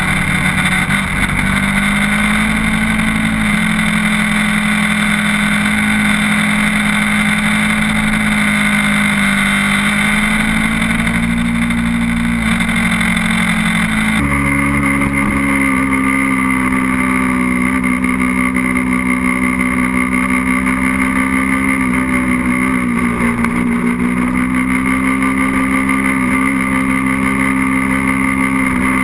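Sport motorcycle engine running at a fairly steady pitch, with rushing wind noise, heard from a camera mounted on the bike. The sound changes abruptly about halfway through, as the recording switches to another camera position.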